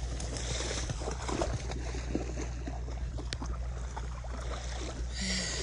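Wading through shin-deep floodwater in rubber boots, the water sloshing and splashing irregularly with each step.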